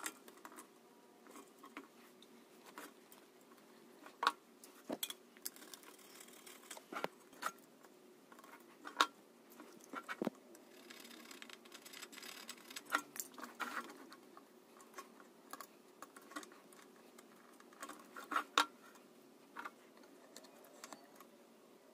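Light clicks and taps of hands, wires and tools on a thin sheet-aluminium channel. In the middle comes a stretch of scraping as a utility knife blade works the aluminium.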